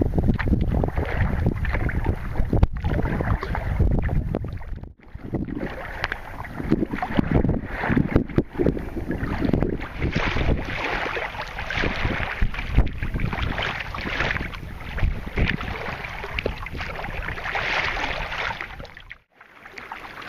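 Wind buffeting the microphone and choppy lake water splashing around a sea kayak as it is paddled. The wind rumble is heaviest for the first few seconds, and the sound drops out briefly about five seconds in and again near the end.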